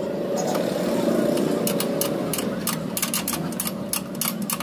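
Short metallic clicks, several a second, starting about a second and a half in, from a wrench tightening nuts on a motorcycle seat-frame bracket, over a steady mechanical hum.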